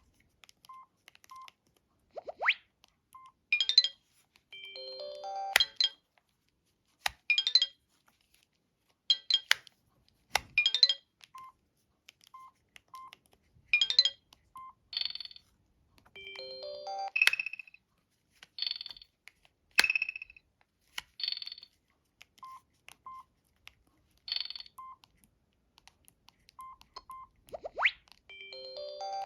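Samsung SGH-D500 mobile phone playing one of its built-in electronic ringtones through its small loudspeaker. A looping pattern of rising sweeps, short high chirps and stepwise falling tones comes round about every 12 seconds, with faint short beeps between.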